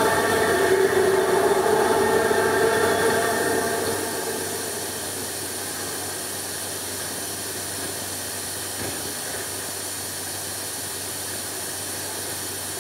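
A male choir holds a sung chord, which fades out about four seconds in. After that only a steady hiss from the old film soundtrack remains.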